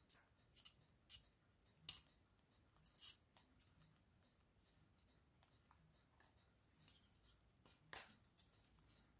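Faint, scattered clicks and short scrapes of small hand tools and parts being handled during circuit-board repair work: a few quick ticks in the first four seconds, then one more scrape near the end.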